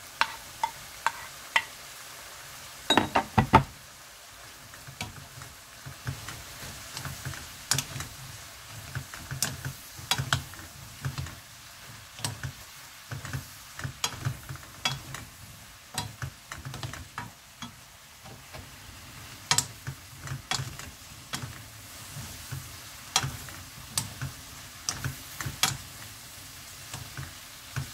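Sweet potato stems, onion and chillies sizzling in a frying pan while a wooden spatula stirs them, with frequent clacks and scrapes of the spatula on the pan. A cluster of louder knocks comes about three seconds in.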